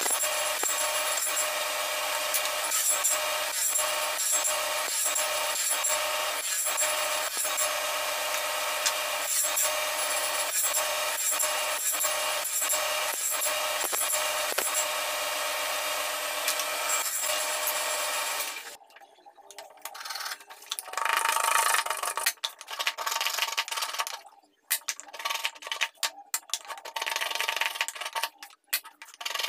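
Bench-mounted power saw running steadily and cutting wood, cutting the slots in small wooden phone-stand blocks. The motor cuts off abruptly about two-thirds of the way through, and short irregular bursts of cutting follow near the end.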